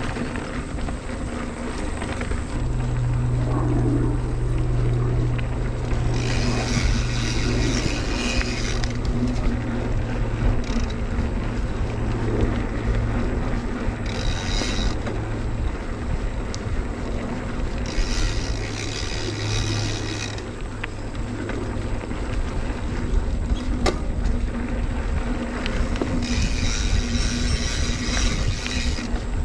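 Mountain bike riding along a dirt trail: steady rolling and rattling noise with a low hum, and a high buzz that comes in for a few seconds at a time, four times.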